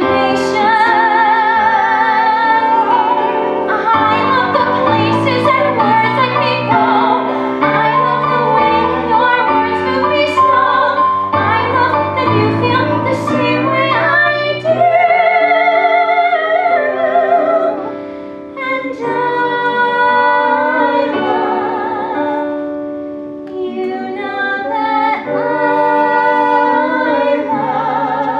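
Musical-theatre singing over live piano accompaniment, with long held notes sung with wide vibrato and short breaks between phrases.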